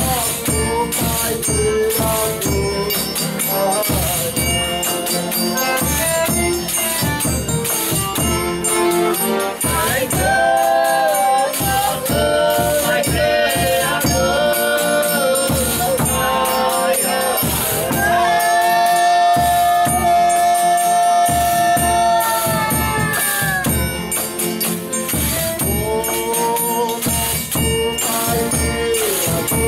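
Folia de Reis group singing in the Minas Gerais folia rhythm. The voices sing drawn-out lines over a steady beat of tambourines and percussion, with one long held chord about two-thirds of the way through.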